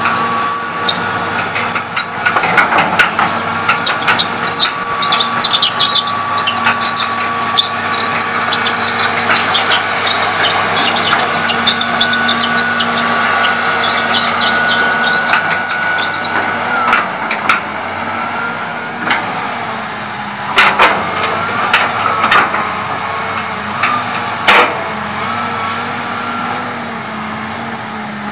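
John Deere 200C LC excavator running, its John Deere 6068H six-cylinder diesel holding a steady drone, with rapid high squeaks and squeals from the steel-tracked undercarriage as it travels and turns. The squealing stops about sixteen seconds in. After that the engine note rises and falls as the boom and bucket move, with a few sharp knocks.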